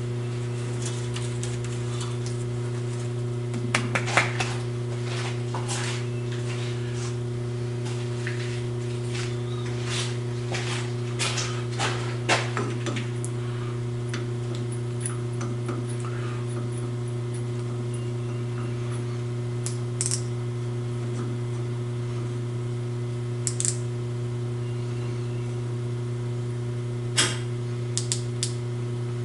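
Scattered light metallic clicks and taps as a large outside micrometer is fitted and adjusted on a steel lathe workpiece, over a steady low machine hum.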